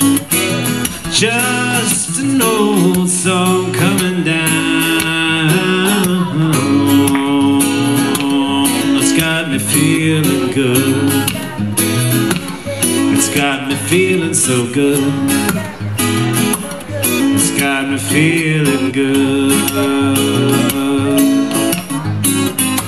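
Solo steel-string acoustic guitar music, strummed and picked in a continuous instrumental passage.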